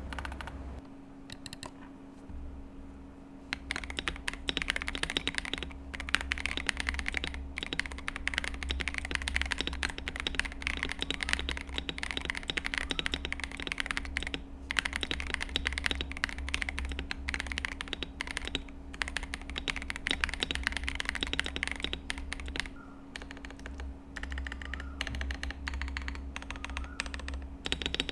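KDB67 Lite mechanical keyboard with a plastic PC plate and Owlstabs V2 stabilizers being typed on: a fast, dense run of key clacks. Near the end it changes to slower, separate presses of the stabilized long keys.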